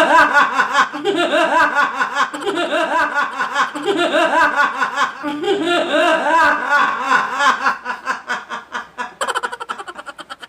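A person laughing hard in repeated bursts, breaking into quick, breathy short bursts near the end.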